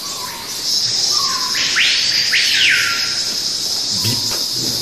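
A whistle-like tone slides up in pitch, holds for about half a second, then slides back down, over a steady high hiss that comes in near the start.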